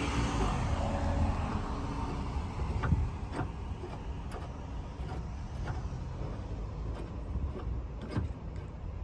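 Steel tow eye being screwed by hand into the threaded towing socket of a VW ID.4's front bumper, giving scattered light clicks and knocks as it turns, the sharpest about three seconds in. Under it a low rumble runs, loudest in the first three seconds.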